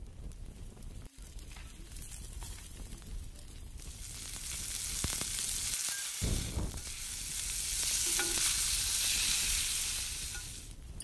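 Marinated chicken pieces sizzling on a wire grate over hot charcoal: a dense hiss that builds from about four seconds in, is loudest near the end and then fades. Before it, only a low rumble with a few faint ticks.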